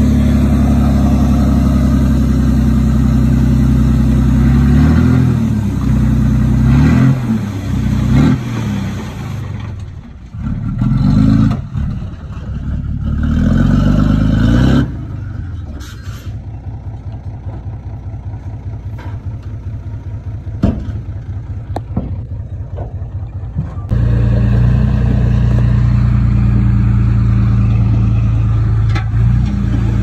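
Heavy diesel engine of construction machinery working, its pitch rising and falling under load. About halfway through it drops to a quieter, evenly pulsing idle with a few sharp clicks, then abruptly returns to loud steady running near the end.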